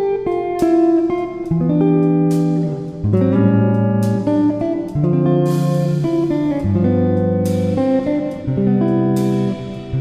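Background music led by guitar, with a new chord struck every second or so.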